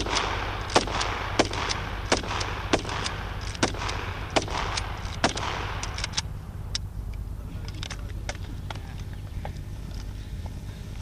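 Kalashnikov-pattern assault rifles fired from the prone position, single shots in quick succession, about one every second, for the first five or six seconds, then only faint clicks.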